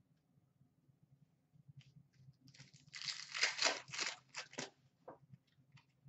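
A trading-card pack's wrapper being torn open and crinkled: a quiet start, then about two seconds of ripping and rustling from around halfway in, followed by a few light ticks.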